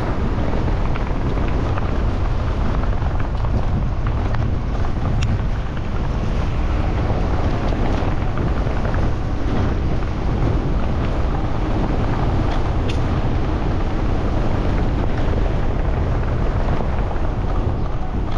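Steady wind rumble buffeting a GoPro Hero10's microphone as a bike courier rides, with road and traffic noise beneath it and a few faint ticks.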